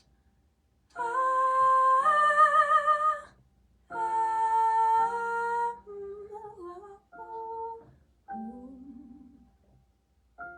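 Wordless singing in long held notes, some with vibrato, over a steady low drone. Two louder phrases are followed by quieter, shorter, gliding notes.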